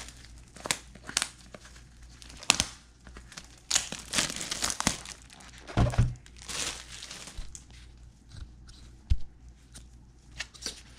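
Cellophane shrink wrap crinkling and tearing in irregular bursts as it is pulled off a cardboard trading-card box, with a dull thump about six seconds in.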